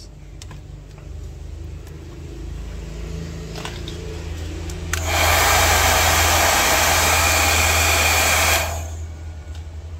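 A low electric hum, then a loud rush of blown air that starts about five seconds in and cuts off after nearly four seconds: a hot-air blower running.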